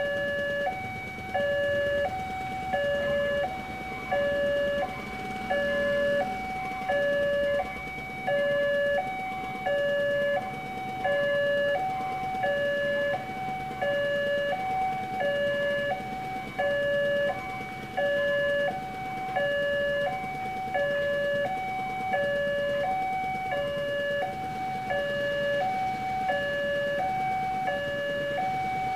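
Railway level-crossing warning alarm sounding continuously: an electronic two-tone signal alternating between a lower and a higher pitch, about once a second each, the signal that a train is approaching and the crossing is closed.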